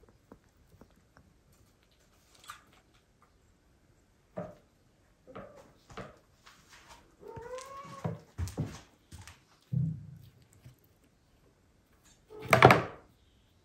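A kitten gives one short rising-and-falling mew about seven seconds in, amid scattered light taps and scrapes. A single loud thump comes near the end.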